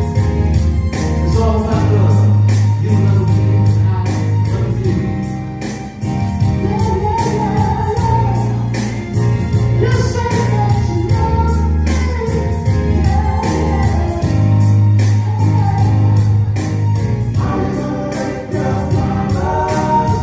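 Live band music: several voices singing together over a bass line and drums keeping a steady beat.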